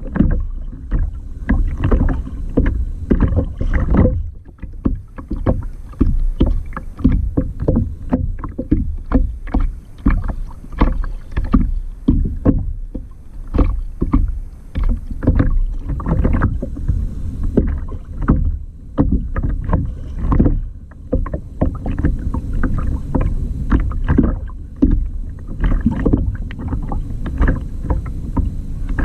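Water sloshing and splashing against a sea kayak in quick, irregular splashes.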